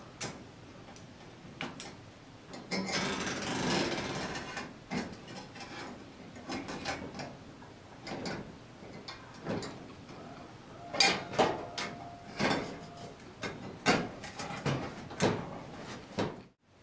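Clicks, taps and scraping from hands working parts inside a metal recessed downlight housing, as a wiring quick connector is plugged together and an LED retrofit module is pushed into its bracket. A stretch of scraping and rustling comes about three seconds in, and a run of sharp clicks comes in the second half.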